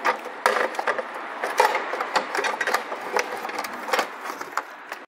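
A Holden Cruze's plastic battery box being worked into its seat in the engine bay: an irregular run of plastic knocks, clicks and clattering.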